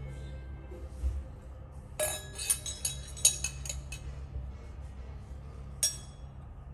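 Glassware and cutlery clinking on a restaurant table: a quick run of clinks about two seconds in and a single clink near the end, over a low steady hum.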